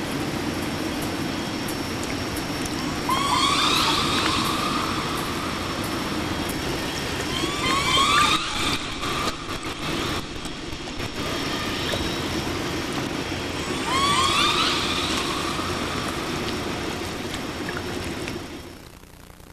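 Killer whale calls: three rising, sweeping cries, each sliding up in pitch, about three, seven and fourteen seconds in, over a steady hiss and low hum. The sound drops away just before the end.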